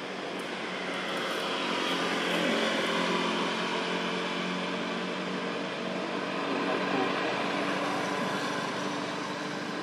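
A steady engine drone that swells over several seconds and then eases slightly.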